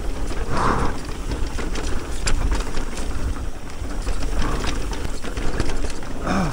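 Fezzari Timp Peak electric mountain bike rolling down a dirt trail: tyres rumbling over the ground, with the chain and parts of the bike rattling and clicking.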